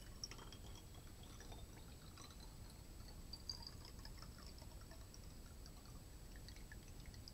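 Faint drips and trickles of liquid in a glass measuring cup: small scattered ticks and tiny splashes.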